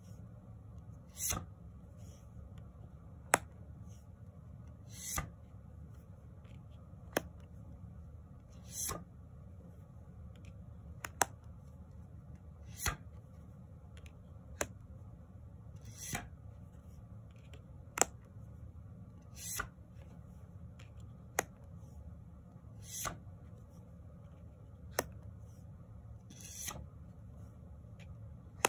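Tarot cards being flipped one at a time off the top of a deck. Each card gives a sharp snap and a soft sliding swish, about one card every three and a half seconds, over a low steady hum.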